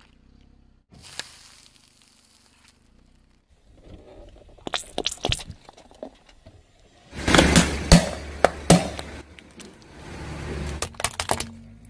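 A car tyre rolling over and crushing small objects on pavement: a series of cracks, crunches and squishes. They are loudest and densest about seven to nine seconds in, with a few sharp cracks near the end.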